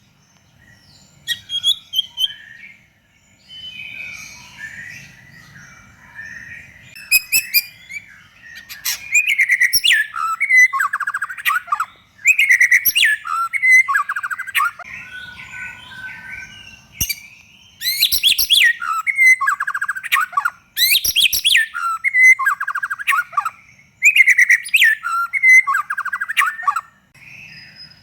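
White-rumped shama (murai batu) singing: a few scattered, quieter chirps at first, then from about nine seconds in loud, varied phrases of fast trills and sweeping whistled notes, repeated with short pauses between them.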